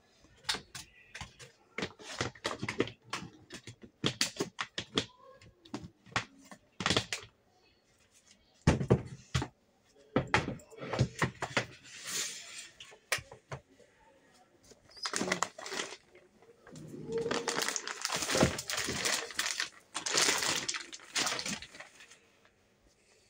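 Rummaging through a storage cabinet: a run of clicks and knocks as things are moved, then several long crinkling rustles of plastic bags being handled.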